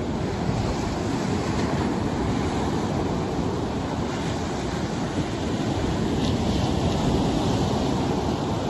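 Sea surf breaking and washing up the beach, with wind buffeting the microphone.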